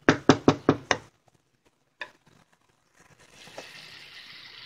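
Five quick knocks of a utensil against the pan, then a single click; about three seconds in, a steady sizzle of the green sauce cooking in the pan.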